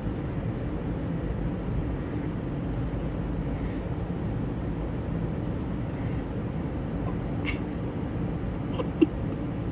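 Steady low rumble of a car cabin, with faint high whimpers now and then from a small dog that is crying. A short sharp sound near the end is the loudest moment.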